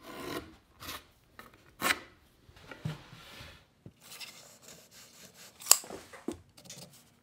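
Pencil scratching over the face of a Douglas fir 2x6 in a series of short strokes as lines are traced and marked out. A single sharp click stands out about two-thirds of the way through.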